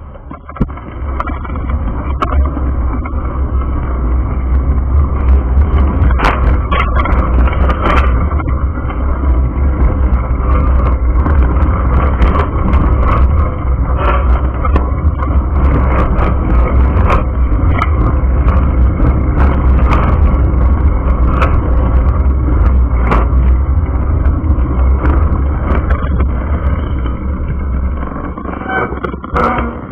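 Car driving along a road, heard from inside the vehicle: a loud, steady rumble of road and wind noise with frequent small knocks. It builds over the first couple of seconds and eases off near the end.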